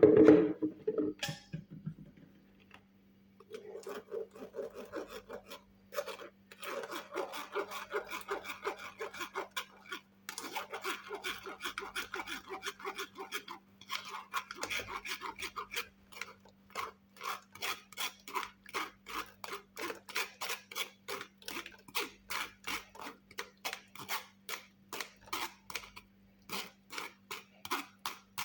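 Repeated scraping strokes of a kitchen utensil, about three a second in long runs with short pauses, after a sharp knock at the start, over a steady low hum.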